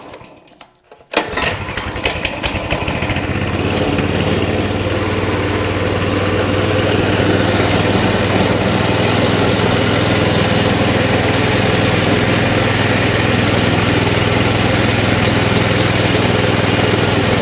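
Coleman CT200 mini bike's small single-cylinder engine catching on a pull start about a second in, then settling into a steady, fast idle of about 2450 RPM. That is well above its 1700 RPM spec, because an over-tight throttle return spring holds the throttle partly open.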